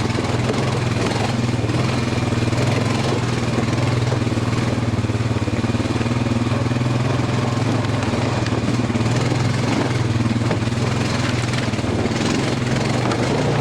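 Honda Fourtrax Rancher AT ATV's single-cylinder engine running at steady, even revs while riding a rocky trail, with a haze of wind and terrain noise over it.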